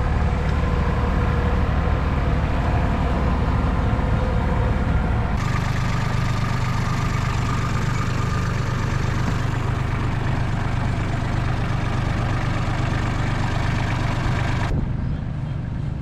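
Kubota combine harvester's diesel engine running steadily. Its tone changes abruptly about five seconds in, and the high end drops away near the end.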